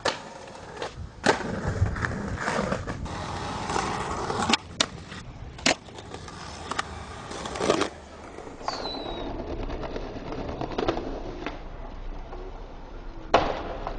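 Skateboarding on concrete: wheels rolling, with a dozen or so sharp cracks from tail pops, trucks scraping ledges and board landings. The loudest cracks come just over a second in and near the end.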